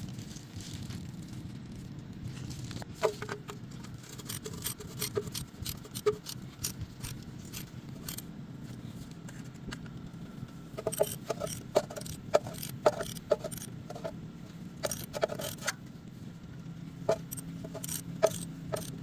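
Metal tools and engine parts clinking and scraping in irregular short clicks, busiest about three seconds in and again in the middle stretch, over a steady low hum.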